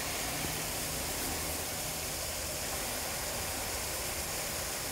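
Garden hose spray nozzle showering water into a galvanized metal tub already partly full of water: a steady splashing that holds the same level throughout.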